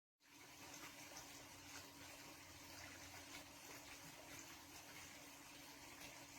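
Intex 56028 LED pool waterfall pouring water into a pool, faint and steady, over a steady low hum; the sound cuts in abruptly just after the start.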